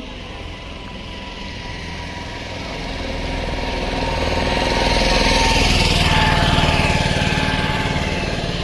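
A motor vehicle's engine and road noise grow louder to a peak about six seconds in, then ease off.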